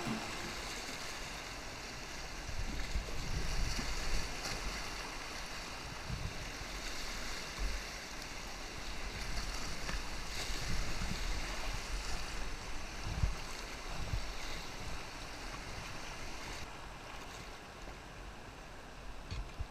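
River water rushing and splashing around a kayak on the move, with occasional short low thumps.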